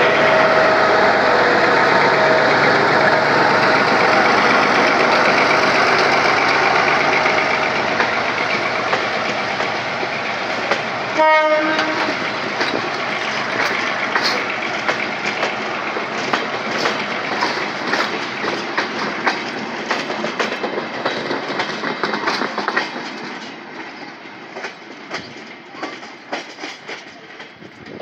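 GM G22 diesel-electric locomotive's EMD 645 two-stroke diesel running loud as it pulls a passenger train past, with a short horn blast about eleven seconds in. After that the coach wheels click over the rail joints, and the sound fades as the train moves away.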